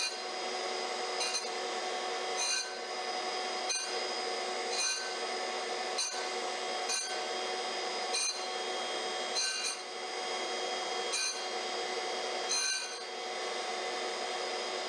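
Manual surface grinder running with a steady whine while a diamond dresser is pushed back and forth by hand across the grinding wheel, dressing an angle onto its edge. A short scratch comes about every 1.2 seconds as the diamond passes.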